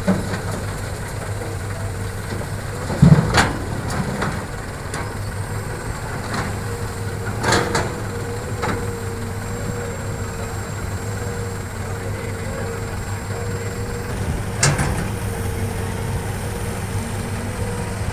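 Diesel engines of a Hitachi hydraulic excavator and an idling dump truck running steadily, with three heavy knocks, the first about three seconds in and the loudest, as dirt and rocks land in the truck's steel bed during loading.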